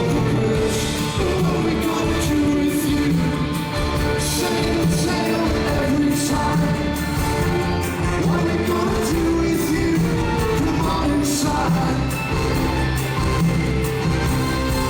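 Live rock band in full swing: singing over sustained instrument notes and steady drum hits.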